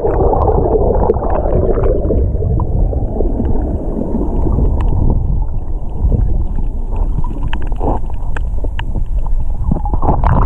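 Muffled underwater sound of shallow water churning, picked up by a camera held below the surface: a dull, steady low rumble and sloshing with scattered faint clicks.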